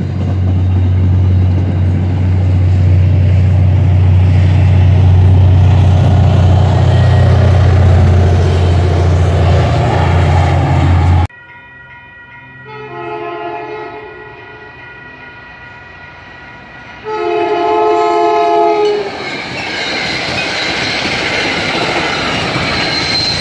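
An MBTA commuter train rolling past close by, a loud steady rumble with a deep hum, which stops abruptly about eleven seconds in. A train horn then sounds twice, a chord of several notes, the second blast louder, and the approaching train's running noise builds near the end.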